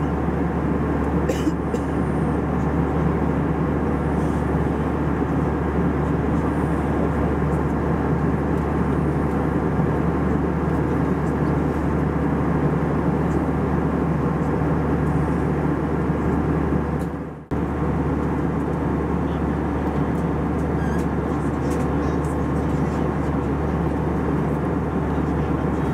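Steady cabin noise of an Airbus A320 in flight: engine and airflow noise heard from inside the passenger cabin. The sound cuts out for an instant about seventeen seconds in.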